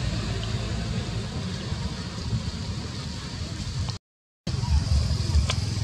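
Steady outdoor background noise, a low rumble under a hiss. It drops out completely for about half a second around four seconds in, then returns with a few faint clicks.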